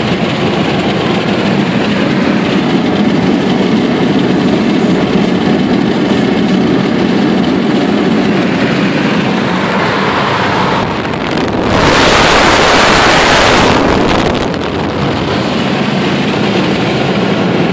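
Road and engine noise inside a car's cabin at highway speed: a steady low hum of tyres and engine, with a louder rushing noise lasting about two seconds about two-thirds of the way in.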